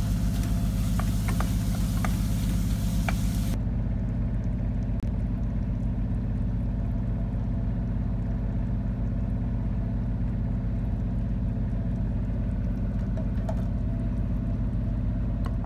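Yacht's inboard diesel engine running steadily with an even, low hum while the boat motors down the river, heard from the galley below. For the first few seconds a pan sizzles with a few light clicks of a wooden spoon, and the sizzle cuts off suddenly about three and a half seconds in.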